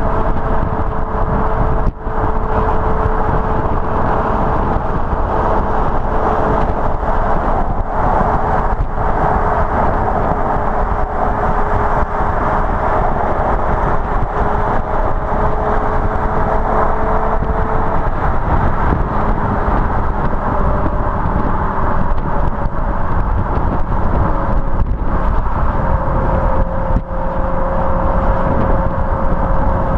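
BMW M5 E61's V10 exhaust, on standard rear silencers, droning steadily at cruising speed with only slow drifts in pitch. A constant rush of wind and road noise runs under it.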